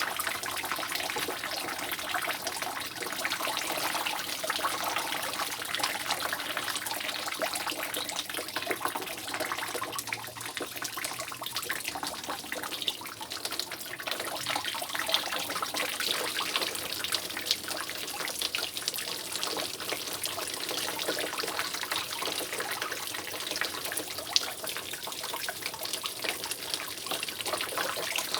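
Water dripping steadily from a roof leak in the rain: many drops falling close together into a continuous trickle, with a couple of louder single drops about halfway and near the end.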